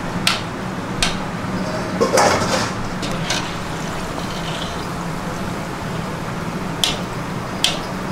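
Restaurant kitchen sound: a steady low hum over a constant hiss, with a handful of sharp clinks, as of a metal utensil striking a pot.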